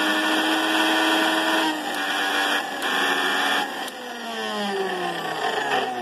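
Singer mixer grinder's motor running unloaded with no jar fitted, on its test run after rewiring with a new armature, bush and overload. It is switched off about four seconds in, and its whine falls steadily in pitch as it coasts down.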